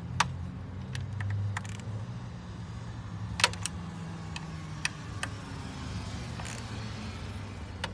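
A ratchet and socket extension clicking and clinking against metal as the oil filter housing bolts of a BMW N54 engine are tightened: a few separate sharp clicks over a steady low hum.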